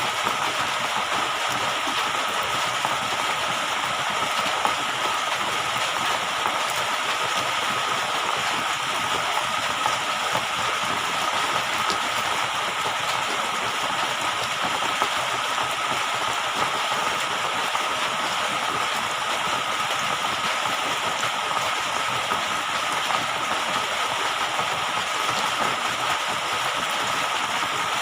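Steady rushing, hissing water noise with a faint steady tone running through it, unchanging throughout.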